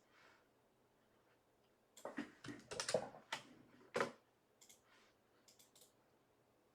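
Typing and clicking on a computer keyboard and mouse: a quick run of taps and clicks about two seconds in, then a few faint ticks.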